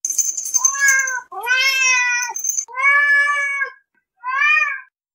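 A domestic cat meowing four times in a row, drawn-out meows with the last one shorter.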